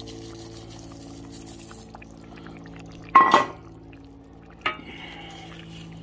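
Crushed tortilla chips poured from a bowl into chili in a cast-iron Dutch oven, a dry rustling hiss for about the first two seconds. About three seconds in comes a loud, sharp ringing metallic clank, then a smaller click a second and a half later, over a steady low hum.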